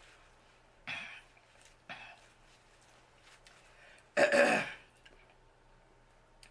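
A woman coughs once, clearing her throat, about four seconds in, with two short soft eating noises before it.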